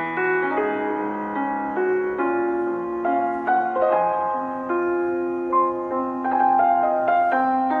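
Background music: a soft piano melody, one note after another with held chords under it.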